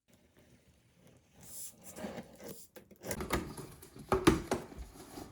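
Handling noises: irregular knocks, clacks and rustling of objects being moved and set down, with the sharpest knock a little after four seconds in.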